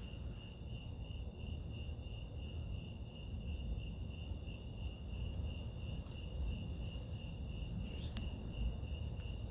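Crickets chirping in a steady, evenly pulsing high trill over a low, constant background rumble of noise.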